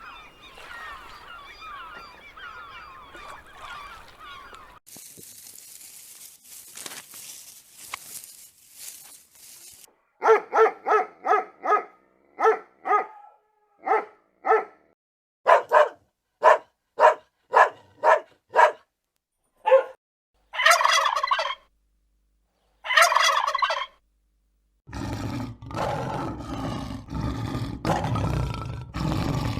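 Turkeys calling: a run of short, repeated pitched calls, then two longer gobbles. Other farmyard sounds come before, and a lower, noisy animal sound comes in near the end.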